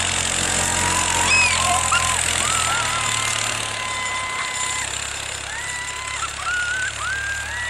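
Low engine drone of a side-by-side utility vehicle towing a snow tube, under a steady rushing noise. From about a second in come several long, high-pitched held yells from the children riding the tube.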